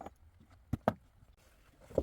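A few dull knocks: one at the start, two close together a little before the middle, and one near the end.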